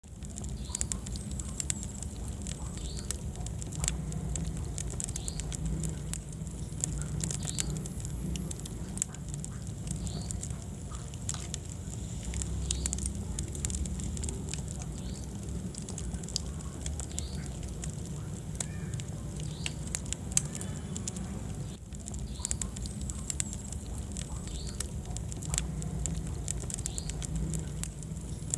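Wood fire burning in a fireplace: frequent sharp, irregular crackles and pops over a steady low rumble of the flames.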